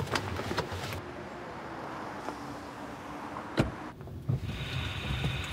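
Steady low rumble of a car running, heard inside its cabin, with one sharp click a little past halfway.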